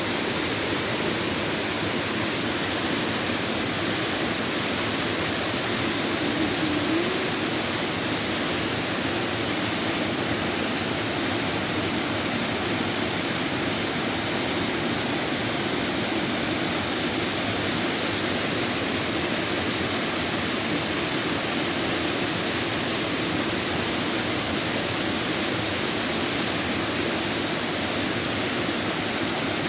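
Rushing water of a river cascade, a steady, unbroken rush of white water.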